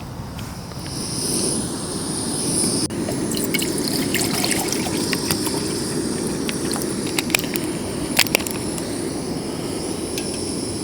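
Portable gas camping stove burner running with a steady rushing hiss under a pot of water being brought to the boil, coming up about a second in, with a few light clicks and taps of the kit being handled.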